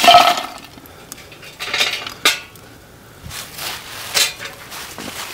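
Lit lumpwood charcoal tipped from a metal chimney starter into a terracotta plant pot, the lumps clattering and clinking against the clay and each other, loudest right at the start. A few sharp clinks follow as the coals settle.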